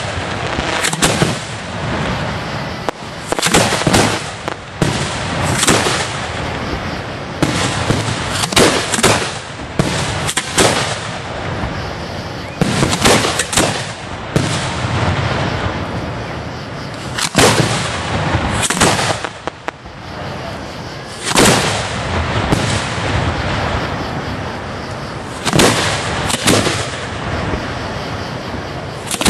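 Aerial fireworks going off in a rapid, uneven string of sharp bangs, one every second or two, with a crackling, rumbling haze between the reports.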